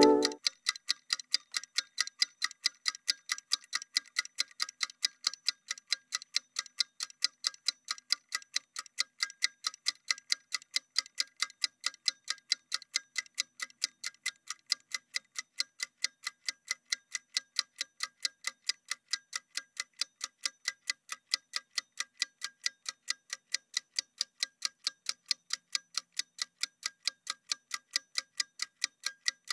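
Ticking-clock countdown sound effect: even, sharp ticks about three a second, marking a rest interval counting down between exercises.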